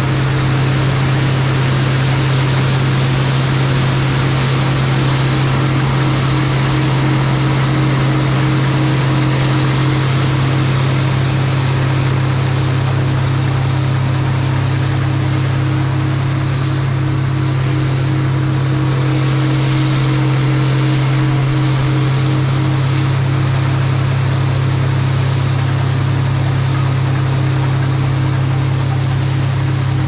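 A machine running steadily at one constant pitch: a strong low hum with an even hiss above it.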